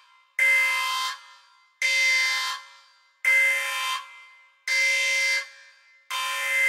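Countdown timer sound effect: a short electronic alarm-like tone sounding once per count, five times about every second and a half, each under a second long with quiet gaps between.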